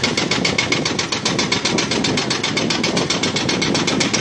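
Hydraulic breaker on an excavator hammering at the concrete base of a minaret in rapid, even blows, with the machine's diesel engine running underneath.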